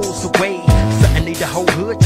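West Coast hip hop track playing: a beat of deep bass and kick drums, with a pitch-bending line over sustained notes.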